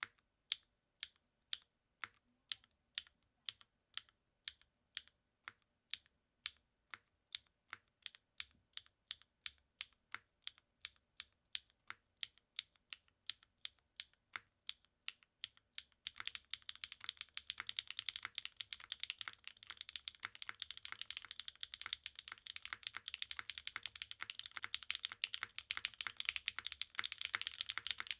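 Custom mechanical keyboard with lubed Gateron Summertime linear switches on an FR4 plate and GMK keycaps: single keys pressed one at a time, about two a second, then about sixteen seconds in, fast continuous typing.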